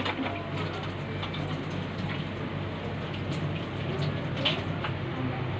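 Instant noodles cooking in a pan on the stove, with a steady rain-like hiss over a low hum. A few light clicks of utensils on the pan come through, the clearest about four and a half seconds in.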